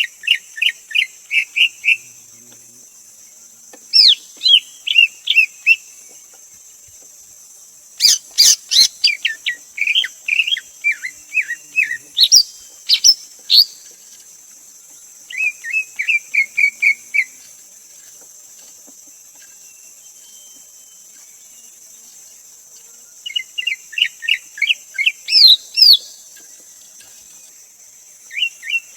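Greater green leafbird singing: short phrases of quick, repeated whistled notes, each about two seconds long, separated by pauses, with one longer, more varied run of higher notes in the middle. A steady high insect buzz runs behind.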